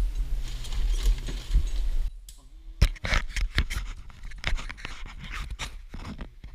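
Close handling noise: a steady low rumble cuts out about two seconds in, then comes a run of sharp clicks and scrapes of gear or clothing being moved right at the microphone.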